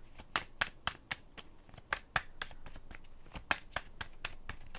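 Tarot cards being shuffled by hand: an uneven run of sharp card snaps and slaps, several a second.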